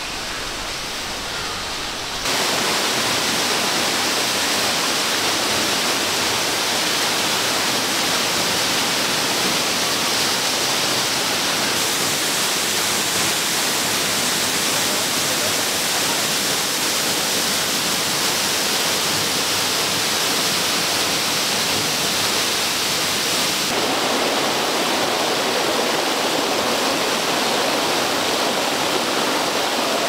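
A waterfall about 20 m high, its water falling in a steady rush. The sound steps up in loudness about two seconds in, and its tone shifts twice more later on.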